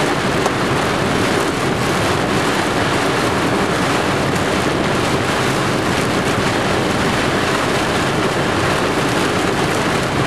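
Heavy downpour drumming on a car's roof and windscreen, heard from inside the cabin, over a steady drone of tyres on the wet road. The noise stays dense and even throughout.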